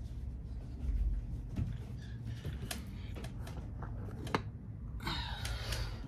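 Handling noise from a phone camera being picked up and moved: scattered clicks and taps, with a burst of close rustling near the end.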